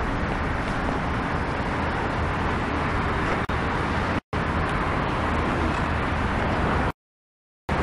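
Steady outdoor background rumble and hiss, like a running vehicle or street traffic, with no speech. It cuts out to silence briefly about four seconds in and again for under a second near the end.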